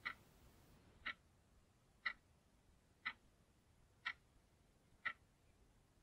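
Ticking clock sound effect used as a countdown timer: six short, sharp ticks, one about every second.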